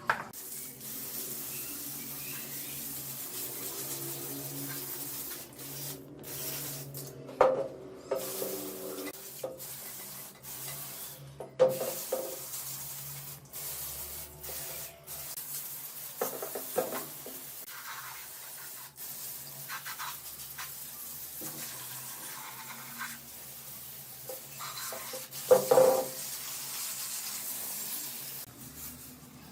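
Steady rubbing and scraping on metal parts, as in hand-cleaning or sanding rusty motorcycle parts, with a faint steady hum underneath. Four loud metallic clinks stand out, about seven, eleven, sixteen and twenty-six seconds in.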